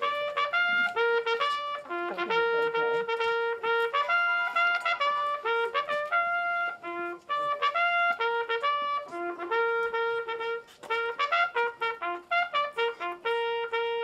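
Solo trumpet playing a bugle call: a melody of quick short notes and held notes on the few pitches of a bugle's natural scale, sounded as the flags are carried in.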